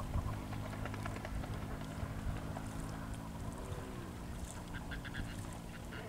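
Waterbirds calling in short, rapid runs of notes, over a low steady hum that dips briefly in pitch about midway.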